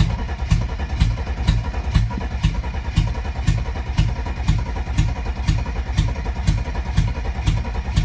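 1992 Mercedes-Benz 300TE's straight-six engine cranking on the starter with a little throttle, firing unevenly but not catching. Sharp pops come about twice a second through the open exhaust, which has no catalytic converter or muffler. The owner takes it for inconsistent spark, or fuel from only some of the injectors.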